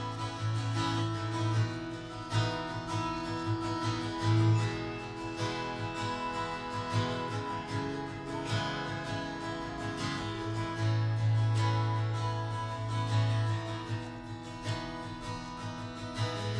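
Instrumental intro of a live acoustic song: an acoustic guitar strummed in a steady rhythm over a loud, held low note that drops out and returns a few times, with no singing yet.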